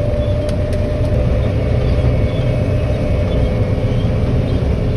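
Heavy diesel farm machinery running steadily during harvest, a constant low engine rumble with a steady whine over it.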